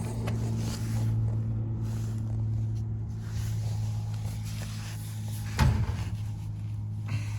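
Steady low machine hum, with one sharp knock about five and a half seconds in.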